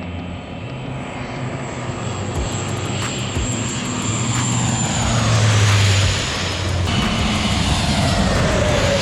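Airliner passing low overhead on its landing approach. The engine noise swells to a peak about halfway through, and a high whine and a lower tone both fall in pitch as it goes past.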